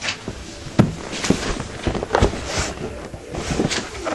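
Cardboard box and packing being handled: an irregular run of knocks, clicks and rustles, the sharpest knock a little under a second in.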